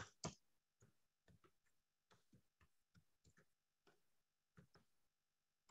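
Faint computer keyboard keystrokes: about a dozen irregularly spaced light clicks as a short line of text is typed, with a pause of about a second near the end.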